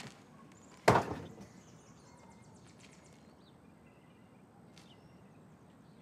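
A heavy wooden hatch drops with a single loud thud about a second in. A quiet outdoor background follows, with a few faint high chirps.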